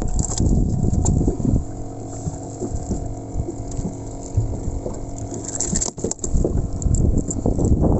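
A motor running steadily with an even hum, mixed with low rumbling buffeting and water noise.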